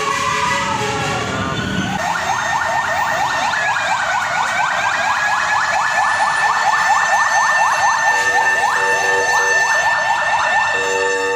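Fire truck sirens: two wailing sirens glide up and down past each other, then about two seconds in a fast, repeating yelp takes over beside a held higher tone. A horn blasts briefly in the second half.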